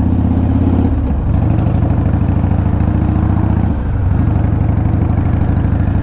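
Harley-Davidson V-twin motorcycle engine and exhaust running steadily under way, heard from the rider's seat. The note changes briefly about a second in and dips again about four seconds in.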